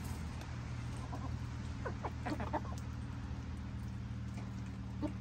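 Asil chickens clucking: a quick run of short clucks about two seconds in and a few more near the end, over a steady low hum.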